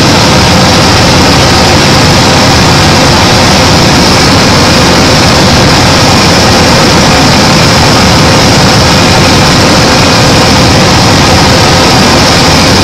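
Steady, loud drone of an aircraft in flight heard on board: engine and rushing air noise with a faint steady hum, unchanging throughout.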